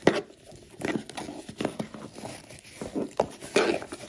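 Hands untying a satin ribbon and handling a Tiffany & Co. cardboard gift box: irregular rustles, taps and light knocks, the loudest just after the start and at about three and a half seconds.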